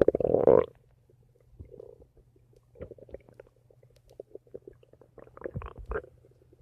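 Human stomach rumbling and gurgling: one loud gurgle right at the start that rises in pitch, then quieter scattered gurgles, and a short run of gurgles near the end.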